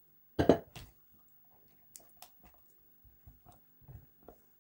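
A loud knock about half a second in, then soft taps and small wet, sticky sounds of a silicone spatula working thick chocolate ganache in a plastic jug.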